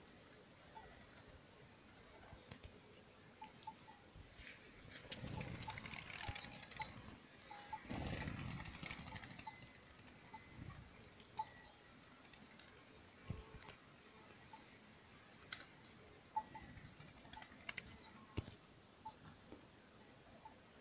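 Eared doves flapping their wings as they come and go at a watering hole, with flurries of wingbeats about five and eight seconds in, over a steady high insect drone and scattered short bird chirps.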